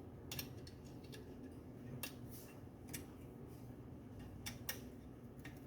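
Faint, scattered metallic clicks of a hand tool tightening a screw on a chainsaw's body, about half a dozen ticks over several seconds.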